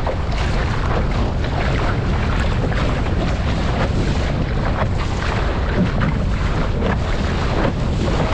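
Strong wind buffeting the microphone over water rushing and splashing along the hull of an RS600 trapeze dinghy as it sails fast through choppy water.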